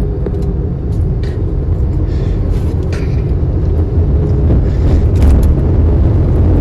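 Steady low rumble of a vehicle's engine and road noise while driving on a road, rising a little about five seconds in.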